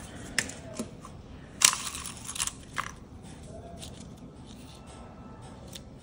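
Hands handling small paper-craft pieces on a tabletop: a couple of light clicks, then a short crinkle about a second and a half in, followed by a few softer rustles.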